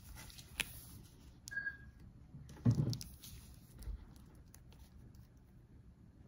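Handling noise from rolls of gift wrap in their packaging: a few scattered light clicks and rustles, with a louder low thump a little under three seconds in, then quieter.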